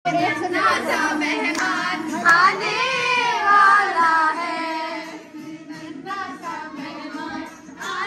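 A group of high voices, children's among them, singing and calling out over background music, getting quieter from about five seconds in.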